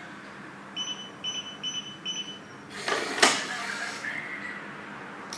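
Yale YDM3168 smart door lock keypad beeping four times as a PIN code is entered, followed by a burst of about a second of the lock's mechanism with a sharp click in it as the door unlocks.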